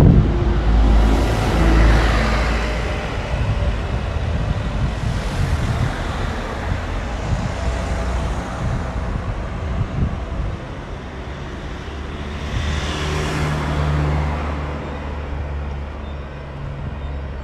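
Road traffic close by: a van and then a small truck drive past, each pass swelling and fading as tyre and engine noise. A low engine hum from the truck runs through the last few seconds.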